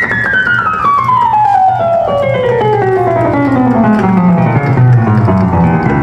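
Roland VA-7 arranger keyboard sounding a sustained note that glides smoothly down in pitch from high to low over about five seconds, above a steady low note.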